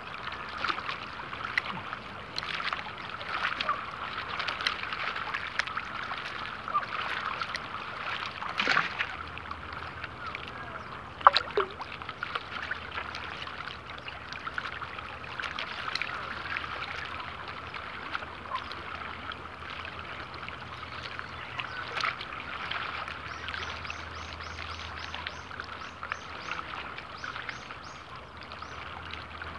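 Small waves lapping and trickling close to the microphone at the water's surface, a steady watery crackle. A single sharp knock comes about eleven seconds in, and a run of faint high ticks near the end.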